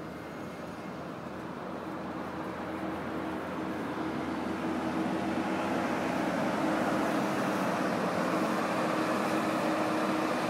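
Coach bus approaching across a paved lot, its engine and tyre noise growing steadily louder. A steady low hum runs underneath.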